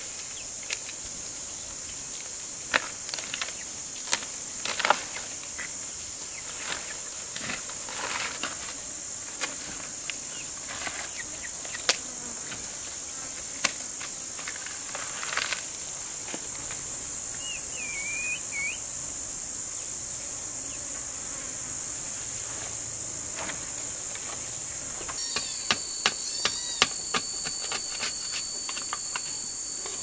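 A steady high-pitched drone of insects, with scattered sharp clicks and knocks from knife work on plant stems and wood. A brief chirp comes about halfway through, and for the last five seconds a second, lower insect tone joins while a machete chops a stick in a quick run of knocks.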